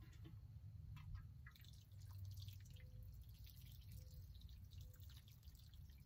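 Faint water dripping and trickling from a small watering can onto the soil around a newly planted hosta.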